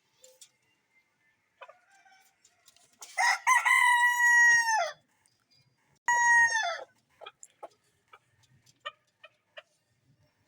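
A rooster crowing: one long crow that drops in pitch at its end, followed about a second later by a shorter second call, then a few soft clucks.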